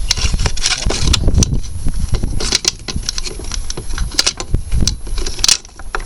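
Metal engine parts and hand tools being handled during dismantling: irregular clicks, knocks and light metallic rattling over a low rumble.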